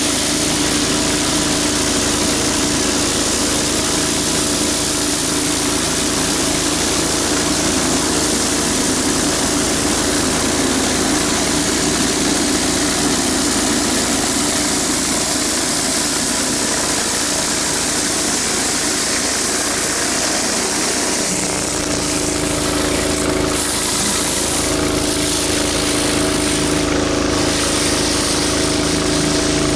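Pressure washer engine running steadily under load, with the hiss of water spraying from a rotary surface cleaner on concrete. About two-thirds of the way through the hiss shifts and comes in uneven streaks as the cleaner is moved.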